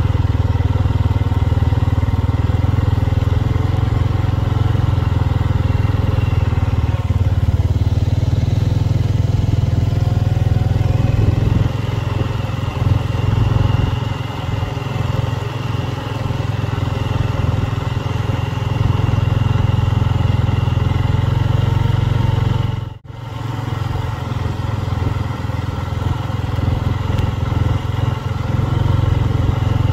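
Honda Rubicon 500 ATV's single-cylinder engine running steadily as the quad rides along a snowy trail. The sound drops out for a moment about three-quarters of the way through.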